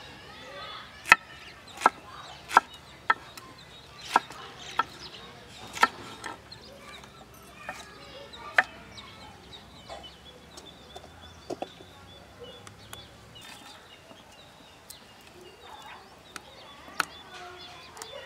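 Knife chopping green bell pepper on a wooden cutting board: sharp, irregular chops about once a second for the first nine seconds or so, only a few knocks after that. Hens cluck in the background.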